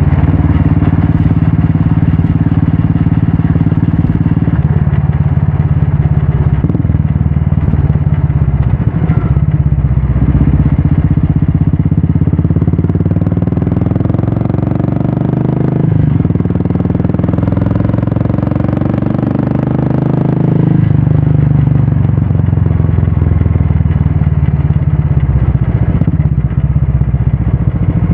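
Royal Enfield Classic 350's single-cylinder engine running through an aftermarket Red Rooster exhaust on the move, a steady low exhaust note. Midway through the note changes for several seconds, as with easing off and opening the throttle again, then settles back.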